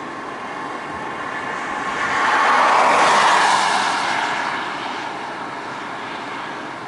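Claas Lexion 550 combine harvester running as it harvests. It grows louder to a peak a few seconds in as it passes close by, then fades again.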